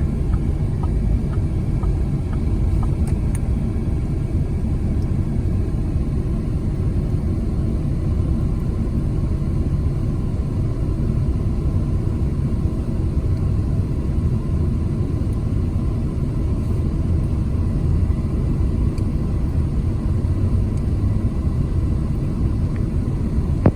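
Steady low rumble of a motor vehicle's engine and road noise, even throughout with no sudden events.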